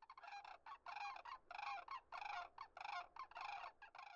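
A flock of cranes calling: a quick string of about a dozen short, rolling calls, some overlapping, that cut off suddenly at the end.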